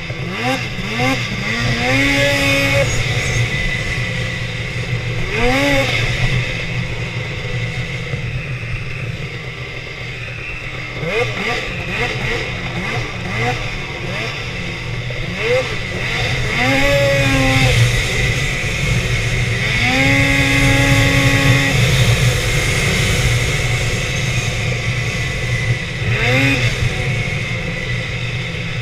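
Two-stroke snowmobile engine under way, its pitch rising and falling as the throttle is opened and eased off again and again. About halfway through, and again shortly after, it holds at high revs for a second or two.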